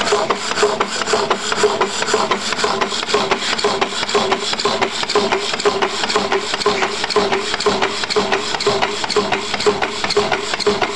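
Antique Peerless High Speed power hacksaw running, its blade rasping back and forth through a 6-inch solid steel bar in a steady, rhythmic cut.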